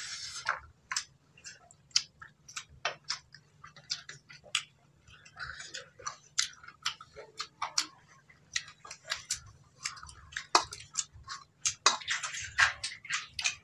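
Irregular small clicks and taps of fingers working rice on stainless steel plates and bowls, with chewing, as people eat by hand.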